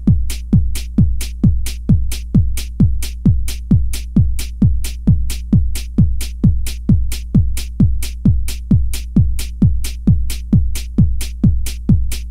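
Electronic dance music: a steady, fast kick-drum beat a little over two strikes a second over a held bass note, with crisp hi-hat ticks on top.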